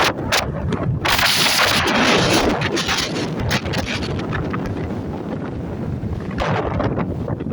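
Strong sea wind buffeting the microphone over the noise of breaking surf, with a loud rush of hiss about a second in and a shorter one near the end.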